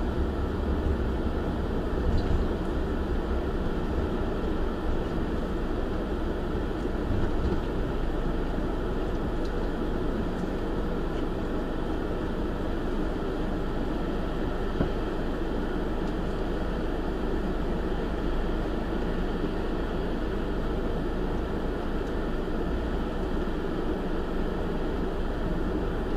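Motorhome driving slowly across a ferry's vehicle deck: steady engine and rolling noise, with a single short knock about halfway through.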